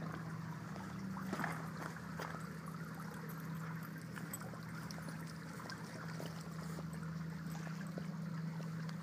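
Swimming-pool water trickling, over a steady low hum, with scattered faint clicks.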